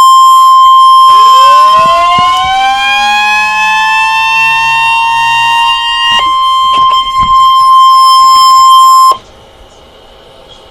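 NOAA Weather Radio 1050 Hz warning alarm tone sent for the required weekly test: one loud, steady, high-pitched beep held for about nine seconds, cutting off sharply near the end. For a few seconds in the middle, other tones glide up toward it and down beneath it.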